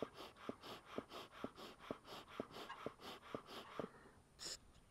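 Bee smoker bellows being pumped by hand, about two puffs of air a second, blowing through freshly lit straw to get it smouldering. The puffing stops about four seconds in, followed by one brief hiss.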